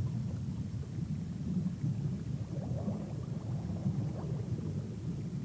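A low, steady rumble, with a faint rustling texture in the middle.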